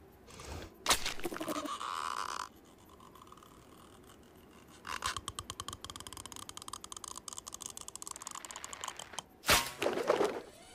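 Cartoon sound effects for a lizard's long stretching tongue. A sharp hit about a second in is followed by a brief buzzing rattle. A long, fast clicking rattle runs for about four seconds, and loud whooshes come near the end as the tongue whips through the air.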